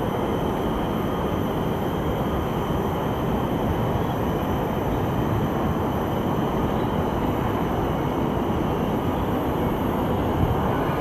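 Steady outdoor ambience: an even rushing noise with no distinct events, and faint steady high tones above it.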